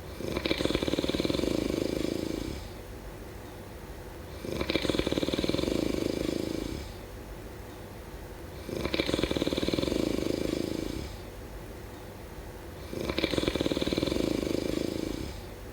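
A person snoring steadily in sleep: four long snores, one about every four seconds, each lasting about two seconds.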